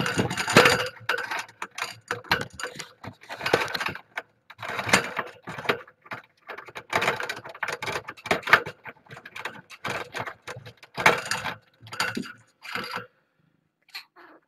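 Irregular clicking, rattling and scraping right at the microphone as the kitten cam and its cable are handled. The noise stops about a second and a half before the end.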